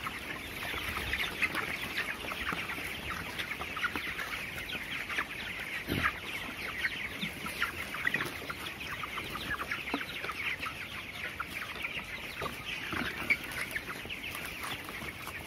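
A large flock of 24-day-old broiler chickens calling together: a dense, continuous chatter of many short peeps and clucks overlapping one another.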